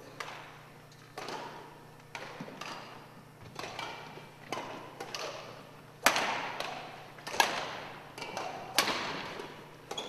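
Badminton rackets striking a shuttlecock in a rally: a string of sharp hits, some every half second and others a second or so apart, echoing in a large gymnasium. The loudest hits come about six, seven and a half and nine seconds in.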